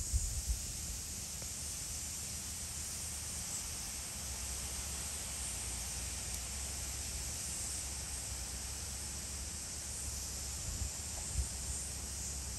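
Outdoor ambience: a steady high-pitched hiss over a low rumble, with a few soft knocks at the start and near the end.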